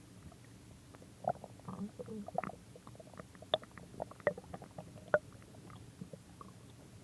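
A person's stomach growling: a run of short gurgles and bubbly pops between about one and five seconds in, over a quieter rumble.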